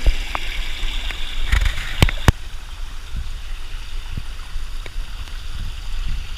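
Rushing water of a stream or waterfall, a steady hiss, with a few sharp knocks: one at the start and two close together about two seconds in.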